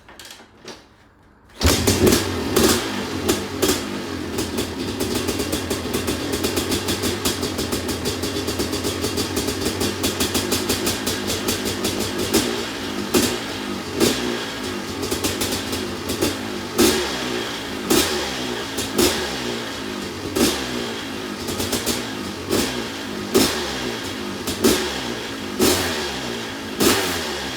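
Rebuilt Honda CR500's 500cc single-cylinder two-stroke engine firing up about a second and a half in after sitting for over two years, then running with repeated throttle blips, one roughly every second and a half in the second half.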